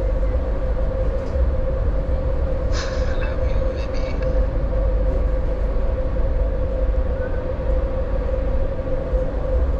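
Steady running noise of a train in motion heard from inside the coach: a deep rumble of wheels on rails with a constant hum, and a brief sharper metallic rattle about three seconds in.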